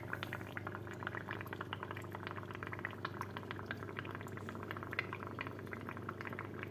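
Water bubbling and trickling: a steady, dense patter of small irregular pops.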